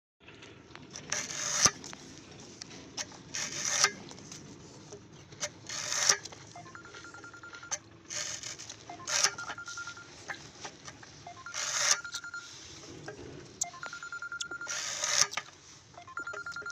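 Hand-lever sugarcane bud chipper cutting a cane stalk into single-bud setts: each stroke is a short crunching cut through the cane ending in a sharp chop, repeated about every two to three seconds.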